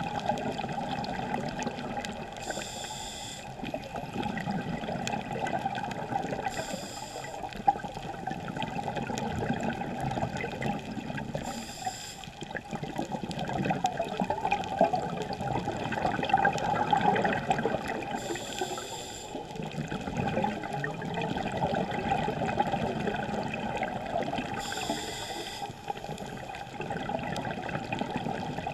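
Scuba diver's regulator breathing, heard through a GoPro's underwater housing: a short hissing inhalation about every five to six seconds, five in all, with long stretches of bubbling exhalation between them.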